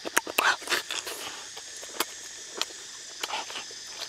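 Wet lip smacks and mouth clicks of someone eating a cooked duck egg: a quick run of them in the first second, then a few single smacks spread out.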